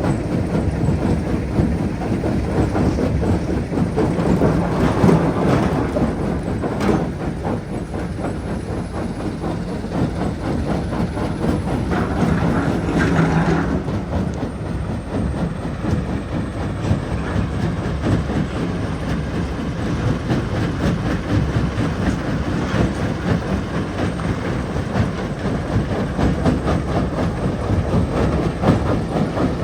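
Jonsson 1208 mobile jaw crusher running, a heavy steady rumble with a constant clatter of rock being crushed. The rattling grows louder for a few seconds around five seconds in and again around thirteen seconds in.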